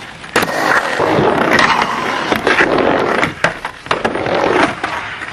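Snowboard edges scraping and sliding over hard snow, broken by several sharp knocks from board hits and landings.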